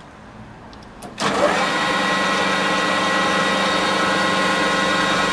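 Chester Cub 630 metal lathe: a click about a second in, then the lathe starts up and runs steadily with an even mechanical whine.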